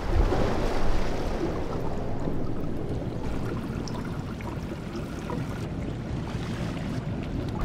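Running water, a steady rush with a deep rumble beneath it, a little louder in the first second.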